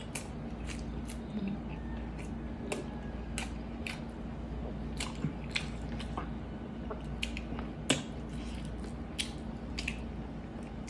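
Close-miked mouth sounds of a person chewing braised pork hock: irregular wet clicks and smacks, a few to a second, over a steady low hum.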